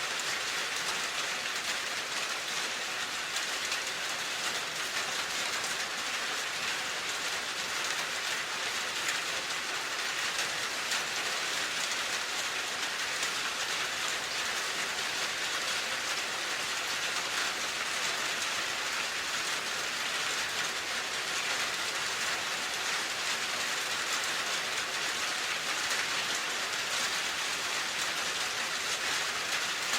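Steady rain falling on a surface, an even hiss of many drops with no let-up.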